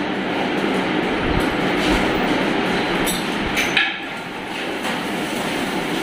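A steady rushing noise with scattered clicks and clinks from dogs moving about on a tiled floor, the sharpest clink a little before four seconds in.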